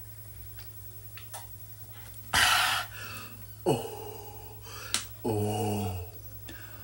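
A man gasping loudly for breath as he finishes chugging a drink, about two seconds in. A short groan falls in pitch, then comes a sharp click and a drawn-out groan near the end.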